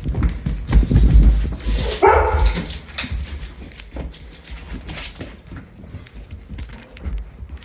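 A dog gives a short whine about two seconds in, over heavy thumps of footsteps and of the camera being carried.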